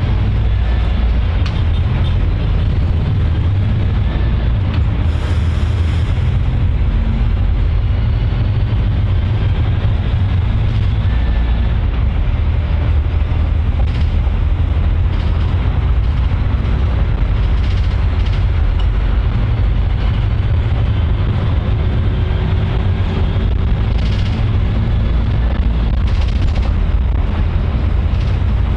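Steady low rumble of a public transport vehicle in motion, with scattered faint clicks and rattles.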